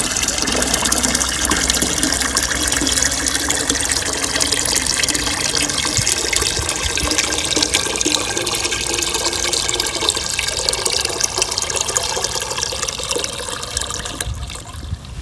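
Rainwater from an IBC tank tap pouring through a short hose into a plastic watering can, a steady stream splashing into the water already in the can. The flow is weak because the tank is nearly empty and gives hardly any pressure; it dies away near the end as the tap is closed.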